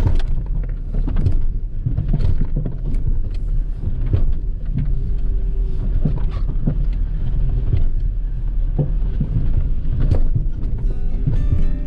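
Off-road 4x4 driving over rough trail: a steady low rumble of engine and tyres with frequent short knocks and rattles as the vehicle jolts. Music fades in near the end.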